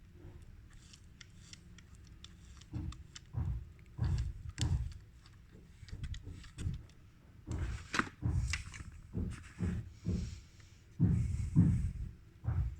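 Irregular clicks, taps and dull knocks of small parts of a CD player's disc mechanism being handled and fitted back together. They are sparse at first and come thick and fast from about two and a half seconds in, with the loudest knocks near the end.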